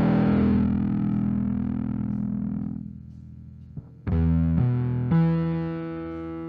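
Bass guitar played through a Fender Blender fuzz pedal. A fuzzed note rings and fades over the first three seconds. After a short gap with a small click, new notes are plucked about four seconds in and held with a thick, distorted sustain.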